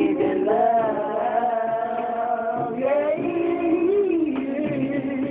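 Two voices singing together without accompaniment, holding long drawn-out notes that slide up and down in pitch.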